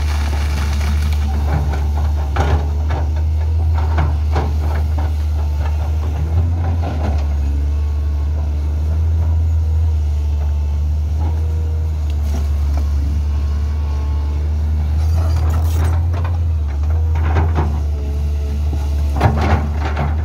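Matador ME220 crawler excavator's diesel engine running steadily under load with a low hum, while its bucket breaks through dry scrub, giving scattered cracks and crunches every few seconds.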